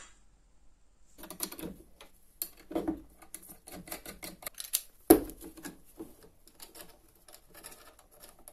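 Steel parts of a homemade angle-grinder table clicking and clattering as they are handled: a steel plate shifting in the slotted bracket and a bolt and nut being fitted. A sharp metal knock comes about five seconds in.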